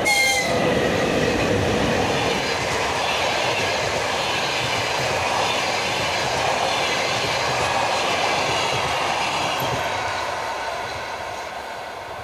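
VL80T electric locomotive passing close by, with a loud whine that drops in pitch as it goes past. Passenger coaches follow, their wheels running over the rails, and the sound fades over the last couple of seconds as the train moves away.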